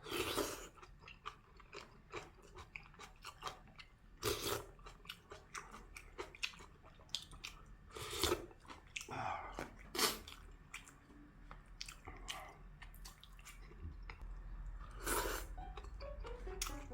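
Close-up chewing and mouth sounds of a person eating braised kimchi stew with pork and tofu: irregular wet smacks and short clicks, a few louder ones standing out.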